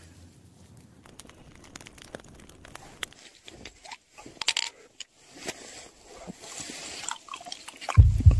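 Small objects being handled: a run of small clicks, scrapes and crunches, with a louder low thump near the end.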